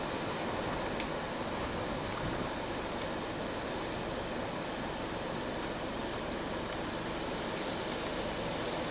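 Steady rush of storm-driven surf mixed with strong wind.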